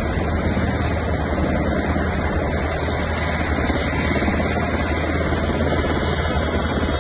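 Military helicopter's engines and rotor running on the ground: a steady low drone with a rapid, even chop of the blades.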